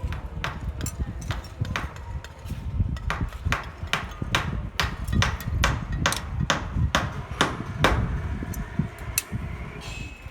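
Hammer blows struck in a steady run, about three a second, stopping shortly before the end.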